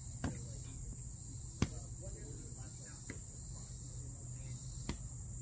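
Foam-padded sparring swords smacking together or onto the fighters four times, short sharp hits, the loudest about a second and a half in, over a steady high insect chorus.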